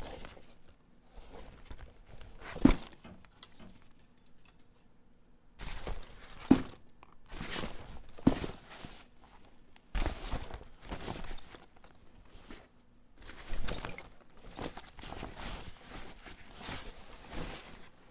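Cloth backpack being handled, folded and dropped: irregular bursts of rough fabric rustling with a few sharper dull thuds, the loudest about three seconds in.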